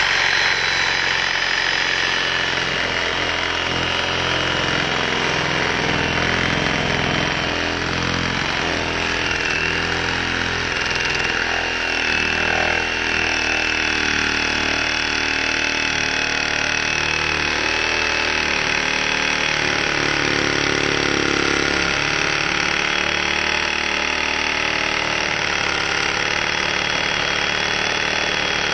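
Milwaukee 2720 M18 Fuel cordless reciprocating saw running steadily at speed, its blade cutting through a tree trunk close to the ground, with a steady high whine over the chatter of the blade.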